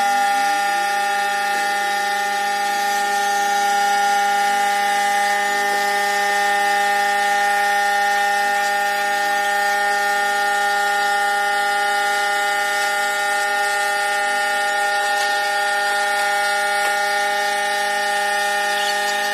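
Automatic mini CNC wood lathe running while its cutter turns a wooden blank: a steady, unchanging high-pitched whine over a fainter hiss of cutting.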